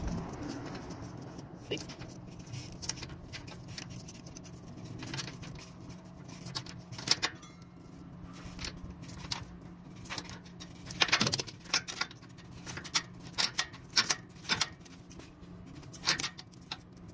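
Irregular light clicks, taps and rattles as a truck's accelerator cable and its metal retaining clips are handled and worked loose from the chassis brackets. A few louder clicks come in the second half, over a faint steady low hum.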